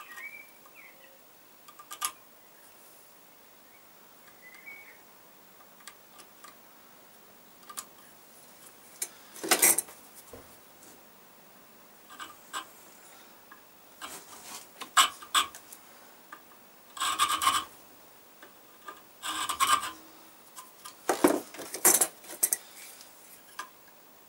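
Flat hand file rasping along the edge of a steel knife blank held in a bench vise, in about six short spells of strokes with pauses between, starting about nine seconds in. A single click and faint bird chirps come before it.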